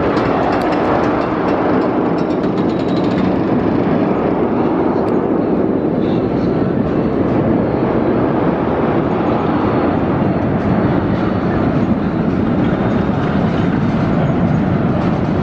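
Arrow Dynamics mine train coaster running along its steel track, a steady loud rumble of the wheels on the rails, with a rapid clatter of clicks in the first few seconds.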